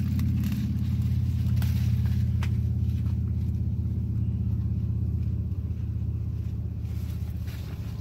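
A steady low rumble throughout, fading slightly near the end, with a few faint crackles as corn husks are pulled back from an ear of corn.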